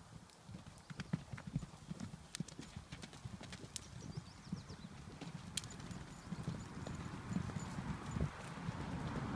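Hoofbeats of a herd of horses loping and galloping over dirt and gravel: many overlapping, irregular thuds with scattered sharp clicks, growing louder toward the end.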